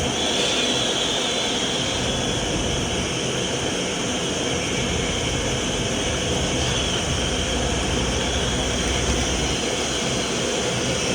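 Vacuum cleaner motor running steadily at speed, a loud even rush of air with a high whine.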